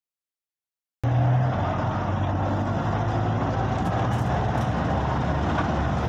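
Engine hum and road noise inside a moving city bus, steady throughout. The sound cuts in abruptly about a second in, after dead silence.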